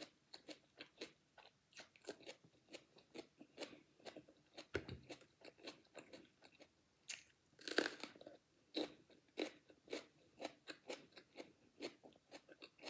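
Chewing raw mini sweet peppers: a steady run of crisp, wet crunches, with one bigger crunch about eight seconds in.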